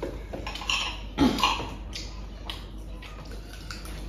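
Quiet clinks and scrapes of knives and forks on dinner plates, with a few short sounds in the first second and a half, one of them a brief voice-like sound.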